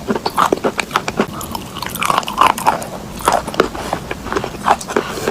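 A person biting and chewing chalk coated in clay paste: irregular crisp crunches, several a second.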